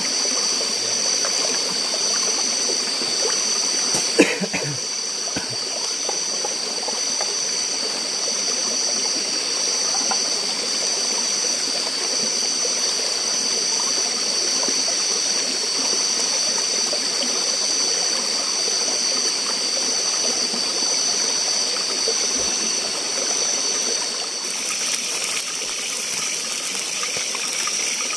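Steady rushing of a flowing forest stream, with two steady high-pitched tones above it that stop about 24 seconds in, and a single sharp knock about 4 seconds in.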